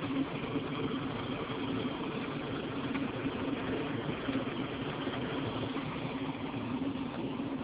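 Round vibrating screen (vibrating sieve) running while sieving sand: a steady low motor hum with a constant rattling hiss over it.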